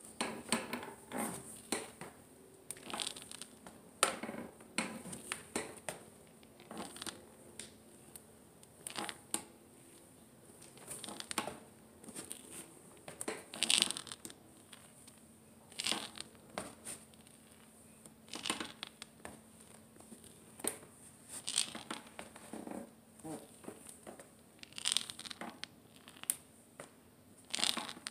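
Knee joint crunching and crackling in a string of short, irregular grinding clicks, one every second or two as it bends: crepitus from a bone-on-bone arthritic knee.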